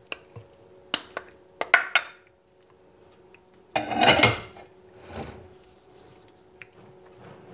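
Glass bowls clinking as chunks of raw pork are tipped from one into the other, a handful of sharp clinks in the first two seconds. Then a spoon stirring the raw meat in the glass bowl, loudest about four seconds in.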